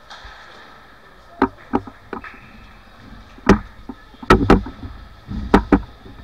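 Ice hockey play: a string of sharp clacks of sticks and puck with heavy thuds against the boards, about seven in all, several in quick pairs, the loudest in the second half.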